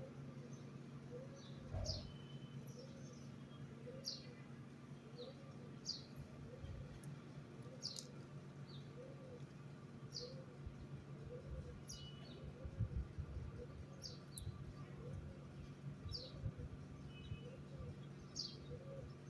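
Small birds chirping: short, sharp calls repeated roughly once a second, over a steady low hum.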